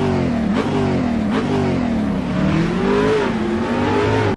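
Volkswagen Gol GTS engine revving, its pitch rising and falling repeatedly with a few sharp cracks in between.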